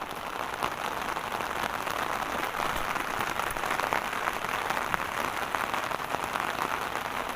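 Heavy rain falling steadily, a dense hiss dotted with the ticks of drops striking hard surfaces.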